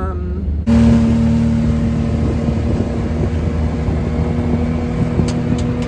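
Motor vehicle engine running at a steady speed under loud driving noise, starting suddenly under a second in; a couple of sharp ticks near the end.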